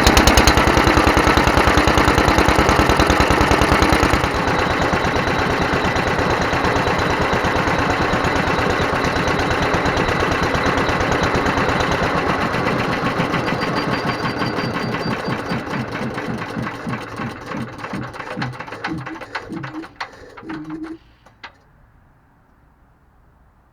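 Petter AS single-cylinder stationary engine running on its rebuilt Solex 26 FV carburettor, beating fast and evenly, dropping in speed about 4 seconds in. Its firing beats then slow and spread out until it coasts to a stop about three seconds before the end, with one last click.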